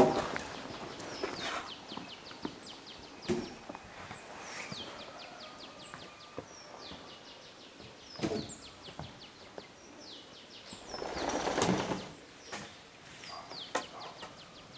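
Small birds chirping repeatedly in quick runs of high, falling notes, over outdoor ambience with scattered sharp knocks and a short rustling swell about eleven seconds in.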